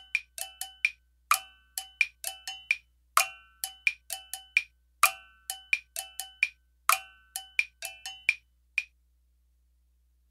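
Bell-like struck percussion playing a short rhythmic phrase of sharp, briefly ringing strikes. The phrase repeats about every two seconds and stops about nine seconds in.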